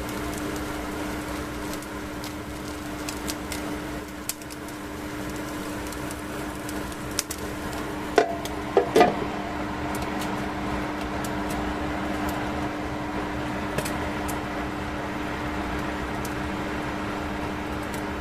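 Microwave oven running with a steady hum, with a few sharp clicks and knocks about eight to nine seconds in.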